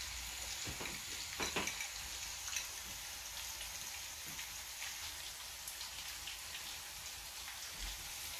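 Lamb ribs, onions and peppers frying in a pan: a steady soft sizzle with scattered light crackles as pats of butter melt in.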